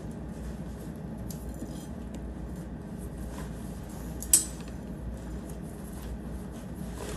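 Tent being assembled by hand: fabric rustling and parts being handled, with one sharp clink a little over four seconds in, over a steady low hum.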